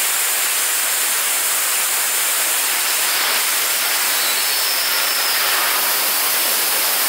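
Steady, loud rushing hiss from a liquid-propellant staged-combustion rocket engine test firing at the close of its 600-second burn. The hiss does not drop off as the flame dies away.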